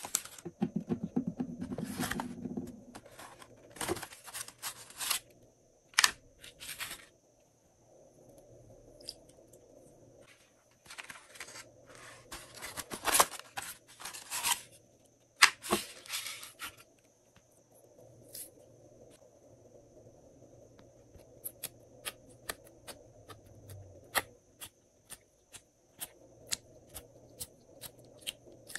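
Glossy slime worked by hand, crackling and popping in clustered bursts as it is pressed and stretched, with a rough, buzzy squelch in the first couple of seconds. Near the end the sound thins to scattered sharp clicks, a few a second.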